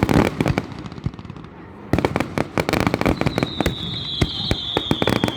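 Fireworks display: a string of sharp bangs and crackles, thinning briefly and then a dense rapid volley starting about two seconds in. In the second half a high whine, falling slightly in pitch, sounds over the bangs.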